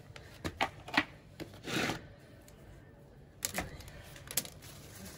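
Scissors snipping leafy vegetable stems: a few sharp separate snips, with a brief rustle of leaves about two seconds in.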